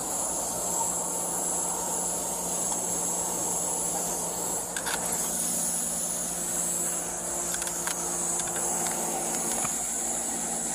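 Steady background noise: a constant high hiss over a low steady hum, with a few faint clicks about halfway through and again later.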